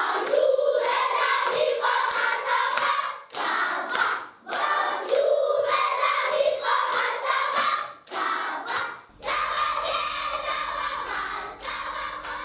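A group of voices singing together, accompanied by many sharp hand claps, with a few short breaks in the song.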